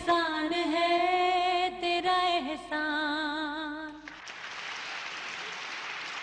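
A Pakistani patriotic song (milli naghma) with a singer holding long, wavering closing notes, ending about four seconds in. Then steady audience applause.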